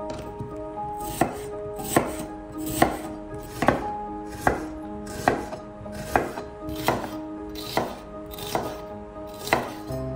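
Kitchen knife slicing food on a cutting board, about eleven even cuts, each ending in a sharp tap on the board roughly every 0.8 seconds.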